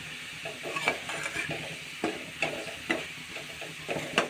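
Metal ladle stirring and scraping onions and spices frying in oil in a metal kadhai, a stroke roughly every half second over a steady sizzle.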